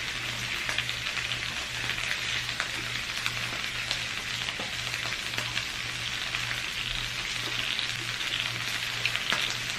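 Food frying in a skillet: a steady sizzle with many small crackles and pops.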